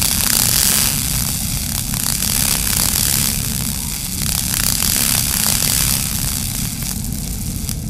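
Cartoon sound effect of a gas cutting torch blasting into a computer panel: a loud hissing roar full of crackling sparks over a low rumble. The hiss and crackle cut off sharply near the end while the rumble carries on.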